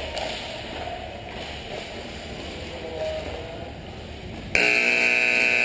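Ice rink's electric game buzzer sounding: a loud, steady, harsh tone that comes in suddenly about four and a half seconds in and is still going at the end. Before it there is only a low background of rink noise.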